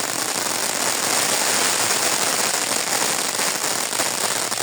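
Pyrotechnics crackling and hissing steadily, a dense, even crackle like a crackling fountain or spray of small firecrackers.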